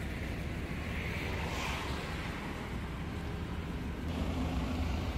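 Steady low rumble of road traffic, with a vehicle's engine hum growing louder about four seconds in as it comes closer.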